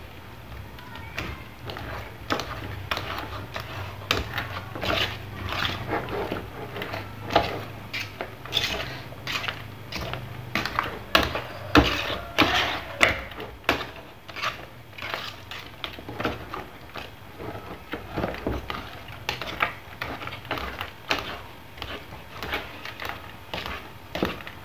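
A cooking utensil stirring a thickening flour batter in an aluminium pot, with irregular scrapes and knocks against the pot's sides and bottom, a few a second. A low steady hum runs underneath.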